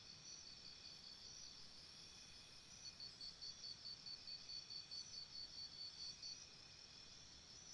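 Faint jungle morning ambience: insects chirping in even pulses, about four a second, over a steady high insect hum, with a higher, thinner chirping joining briefly near the start. The pulsed chirping stops about six seconds in, leaving the steady hum.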